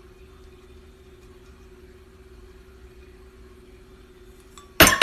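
A drinking glass holding a cat's head, with a faint steady hum behind it; near the end comes a sudden loud clatter as the glass knocks against the stone countertop.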